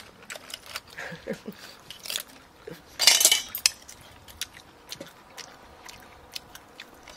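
Seafood shells and eating utensils clicking and clattering against a metal hotpot as the seafood is picked through, with one loud crackling crunch about three seconds in.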